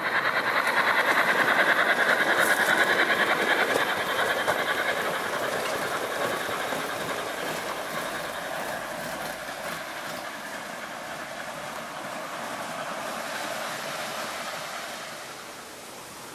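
O gauge model train, an LNER A4 locomotive hauling a long rake of coaches, running on garden track with a steady clickety-clack rattle of wheels on rail. It is loud for the first few seconds, then fades as the train runs away, dropping off near the end.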